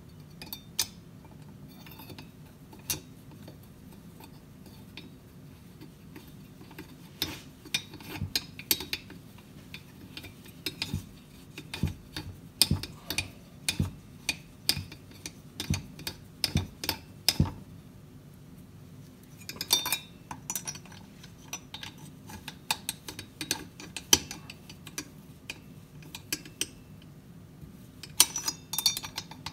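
Irregular small metal clicks and clinks of screws and a hand tool against a Jonsered 625 chainsaw's engine parts as the screws are fitted and seated, busiest in the middle and again near the end, over a low steady hum.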